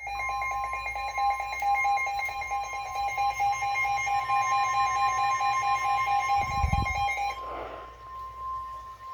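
NOAA Weather Radio warning alarm tone: one steady high tone held for about nine seconds, signalling that a new warning is about to be read. A second, lower beeping tone pulses rapidly over it until it stops about seven seconds in, with a dull thump just before.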